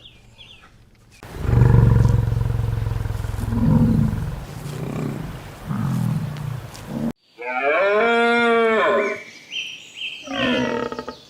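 Recorded animal calls: a deep roar followed by several grunting calls, then, after a sudden cut, a cow mooing in a long call that rises and falls. A brief high steady tone comes near the end, followed by a shorter moo.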